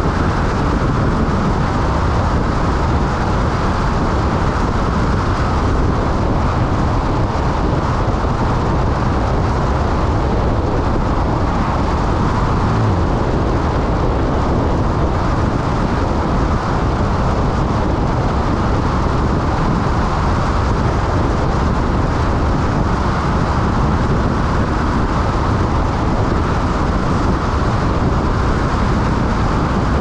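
Steady driving noise of a car cruising on a two-lane highway: tyre roar and wind rushing over the microphone, even throughout, with no change in speed.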